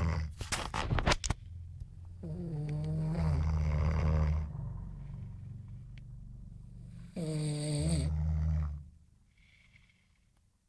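A sleeping person snoring loudly: three long, low snores a few seconds apart, the first breaking into a crackly rattle. It goes quiet near the end.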